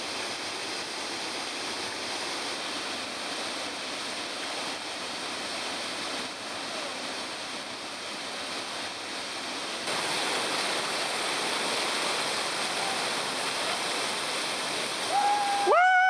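Waterfall plunging into a pool: a steady rush of falling water that gets louder about ten seconds in. Near the end a loud, high call rises, holds for about a second and drops away, over the rush.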